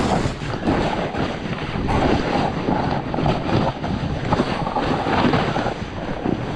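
A snowboard slides and scrapes over snow on a downhill run, under loud gusting wind noise on the rider's camera microphone.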